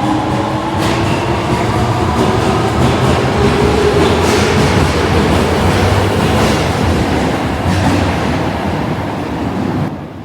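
Osaka Metro 22 series subway train pulling out of an underground station. Its traction motors whine with a rising pitch as it accelerates, then the cars clatter past over the rail joints, and the sound fades away near the end.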